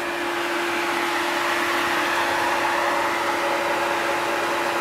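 Electric thermo radiator fan running: a steady whirring rush of air with a constant hum.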